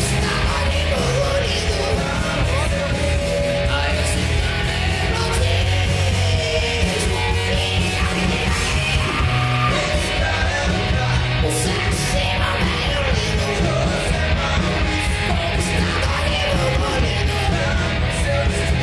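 Hard rock band playing live: electric guitar and drums under a yelled, sung lead vocal.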